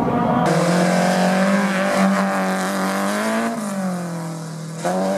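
Rally car engine running hard at high revs, its pitch holding steady, dipping about three and a half seconds in, then jumping back up near the end.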